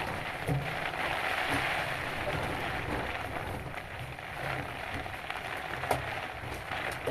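Crinkling and rustling of a flexible corrugated aluminium stovepipe being worked onto a metal flue pipe by hand, with a couple of light metal knocks.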